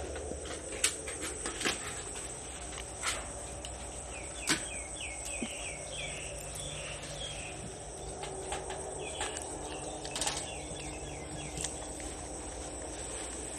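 Outdoor ambience with a steady high insect drone. A bird chirps in two quick runs, about halfway through and again a few seconds later, and a few sharp taps are heard.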